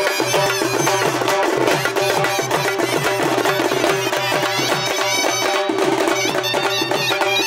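Traditional Maharashtrian wedding band music: a sanai (shehnai) and trumpet play the melody over a held note, with drums beaten with sticks keeping a quick, steady beat.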